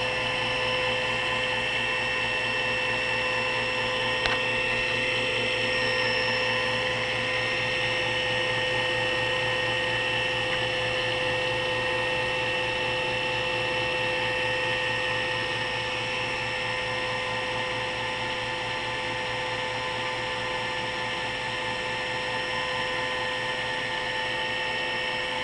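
Taig CNC mill cutting a finishing pass: the spindle and cutter run with a steady whine. There is one light click about four seconds in.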